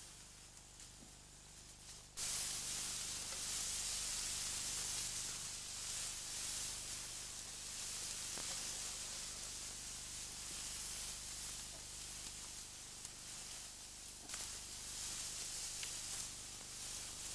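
Tall grass rustling and brushing against the camera as it is carried through the grass: a steady hiss that starts suddenly about two seconds in.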